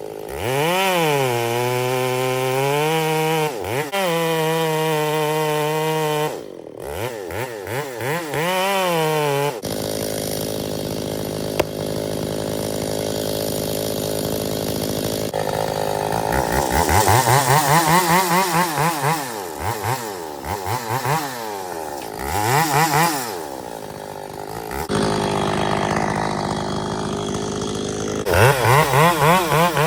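Ported Echo 680 two-stroke chainsaw running at high revs and cutting, its engine pitch rising and falling again and again with throttle and load. It is interrupted by a few abrupt breaks.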